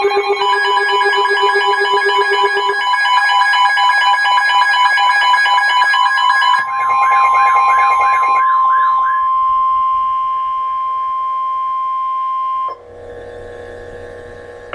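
Emergency Alert System attention tones ahead of a severe thunderstorm warning: several electronic alarm tones layered, steady and pulsing beeps, with a warbling tone joining about seven seconds in. A single steady tone near 1 kHz then holds alone for several seconds and cuts off near the end, leaving a faint low hum.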